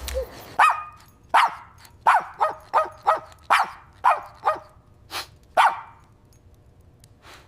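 A dog barking: about ten short, sharp barks in quick, uneven succession over roughly five seconds.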